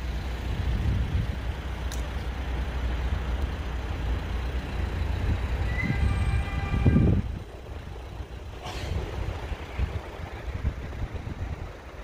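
Low rumble of road traffic, a vehicle passing and fading away at about seven seconds, with a brief high squeal just before it goes.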